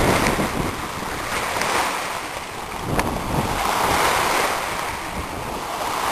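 Sea waves washing in surges that swell and fade every couple of seconds, with wind buffeting the microphone. A single sharp click about three seconds in.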